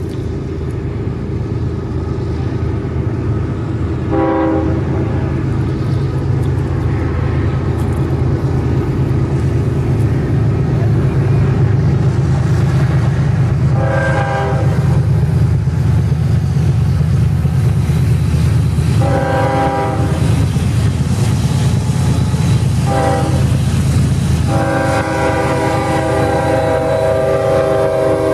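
CSX freight locomotive horn sounding for the grade crossing: a short blast about four seconds in, then two long blasts, a short one and a long one held as the lead locomotives reach the crossing. Under it a low rumble of the approaching diesel locomotives grows louder.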